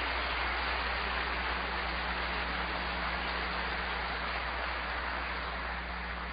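Audience applauding, a dense steady clapping that slowly dies down near the end.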